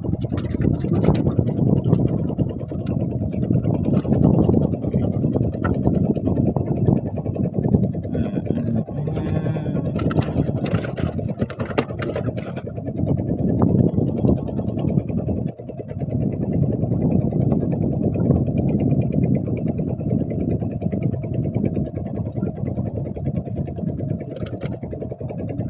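Small fishing boat's engine running steadily, a low rumble with a brief dip about 15 seconds in.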